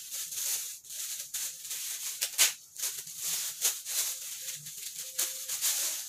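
Plastic packaging bag crinkling and rustling with irregular sharp crackles as a small microphone stand is unwrapped from it.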